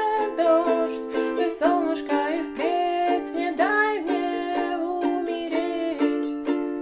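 Ukulele strummed in a steady down-down-up pattern, the simplified strum for the song's verse, several strokes a second. A wavering pitched line, most likely a voice singing or humming along, rises over the strumming in the middle.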